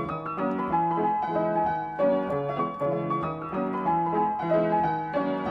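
Background piano music: a continuous run of struck notes in an even rhythm.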